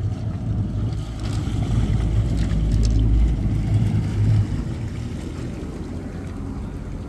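Boat engine rumbling low while a boat is eased into its dock at slow speed; the rumble swells for a few seconds, then drops off suddenly about four and a half seconds in as the throttle is eased back.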